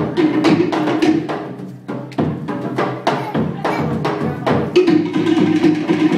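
Live dance drumming: a fast rhythm of sharp wooden and drum strikes, about four a second. A held lower note sounds over it near the start and comes back for the last second or so.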